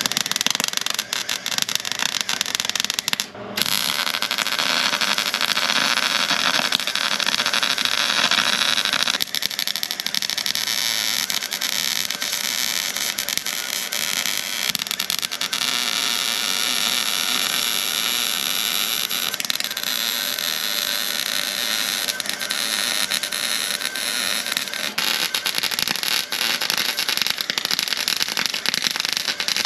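MIG welder arc crackling steadily as a steel bar is welded onto a truck's body, with one short pause about three seconds in.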